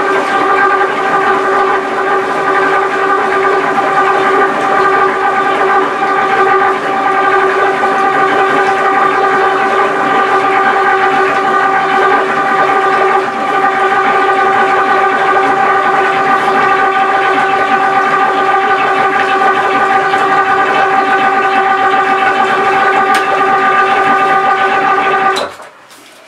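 12-volt electric oil-change pump running with a steady whine as it sucks warm oil out of a Volvo Penta D2-40 marine diesel through a hose. It cuts off abruptly near the end, the oil drained.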